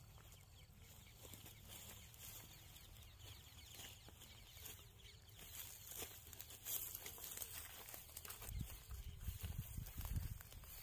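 Dry grass and rice stubble rustling and crackling under footsteps as a mesh bag holding a big rohu fish is handled on the ground. A low rumble comes in about eight and a half seconds in.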